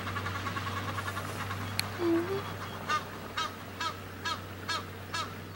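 A bird gives a run of short, honking calls about twice a second, starting about three seconds in. Before that there is a rapid background chatter, and a steady low hum lies underneath throughout.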